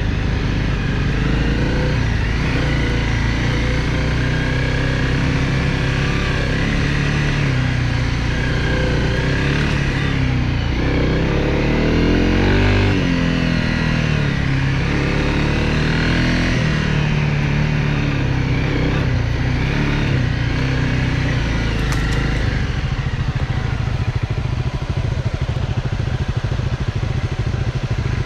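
Honda CRF250L Rally's single-cylinder engine running steadily as the motorcycle is ridden. The engine note swings up and down with the throttle about halfway through.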